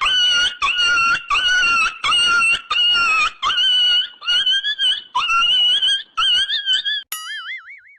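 Comedy ringtone sound effect: a high, squealing call repeated about a dozen times, each call swooping up at its start. Near the end it changes to a single warbling tone that wavers rapidly up and down.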